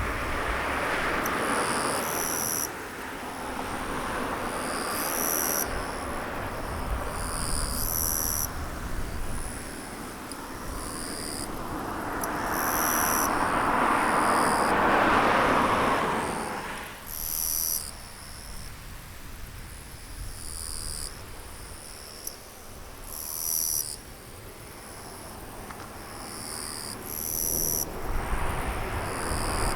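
High-pitched chirps repeating every second or two, over a rushing noise that swells to its loudest about halfway through and then falls away.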